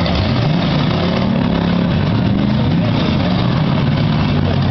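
Demolition derby cars' V8 engines running together, their pitch rising and falling as they rev.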